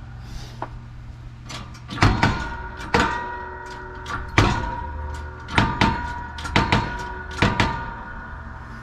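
Metal parts being struck during wheel-bearing replacement work: about a dozen sharp metallic knocks, several in quick pairs, each leaving a short ringing tone, over a steady low hum.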